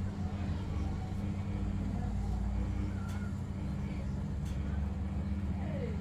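Samsung ecobubble 8 kg front-loading washing machine in its cotton wash cycle: the drum motor runs with a steady low hum as the drum turns the sudsy load.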